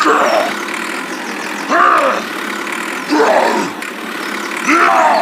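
Steady engine-like running noise with a pitched tone that swells up and falls back about every one and a half seconds, four times.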